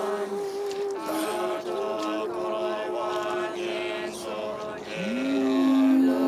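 A group of monks and lay practitioners chanting a Tibetan Buddhist prayer together, voices held on long steady notes that step up and down in pitch. A lower voice drops away about half a second in, and a new lower note slides in near the end.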